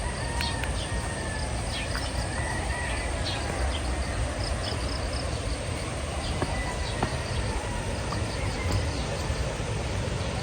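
Steady rushing noise of a mountain river, with a few faint high chirps over it.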